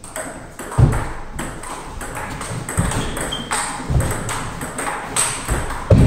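Table tennis rally: the celluloid ball clicking quickly back and forth off the rubber paddles and the table, a few strokes a second. A few heavier low thumps, the loudest about a second in and near the end, come from the players' feet on the wooden floor.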